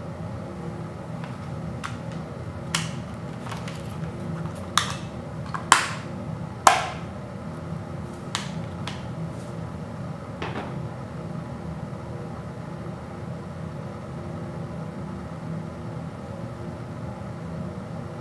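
Sharp plastic clicks and snaps of a Blu-ray disc going back onto its case's hub and the blue plastic case being shut and set down. There are about eight clicks in the first ten seconds, the loudest two about six and seven seconds in, over a steady low hum.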